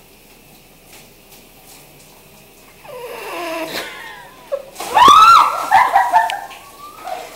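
Young woman's laughter, starting about three seconds in and breaking into loud, high-pitched squealing laughter about five seconds in.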